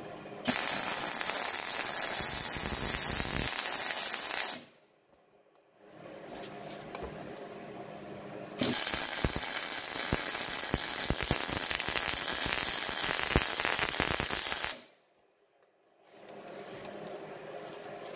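MIG welder arc crackling and spitting as rebar is welded to a steel base plate, in two beads of about four and six seconds, each stopping abruptly.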